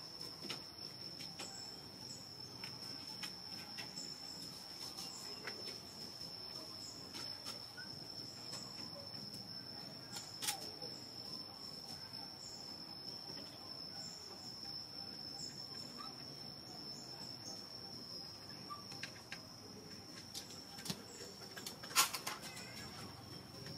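Steady high-pitched insect drone, one unbroken tone, over a low background hiss, with a sharp click about ten seconds in and a louder pair of clicks near the end.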